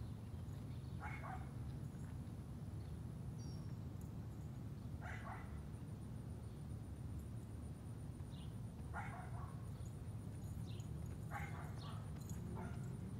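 A dog barking five times, short single barks a few seconds apart, over a steady low rumble.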